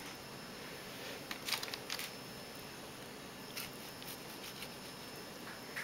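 Paring knife cutting strawberries over a bowl: a few short soft clicks and taps, a cluster of them about one and a half seconds in and one more a little past the middle, over a steady background hiss.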